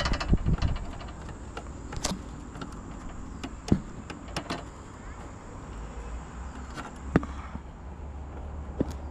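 Hands working at an outdoor fibre-optic cable cabinet: scattered sharp clicks and knocks of the plastic lid and fittings being handled, the loudest just before four seconds and just after seven seconds in. A low steady rumble sets in for the last couple of seconds.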